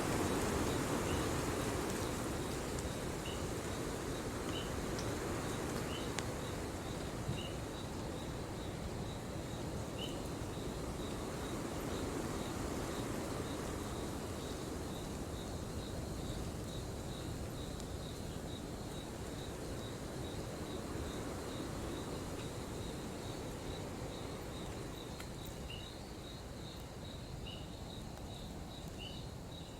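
Crickets chirping steadily in a fast pulsing trill, with a second chirp about once a second. Underneath is an even low rushing hiss with an occasional faint crackle from the campfire.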